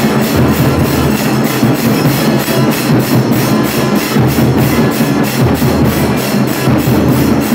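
Music with a steady, fast percussive beat, about three strokes a second.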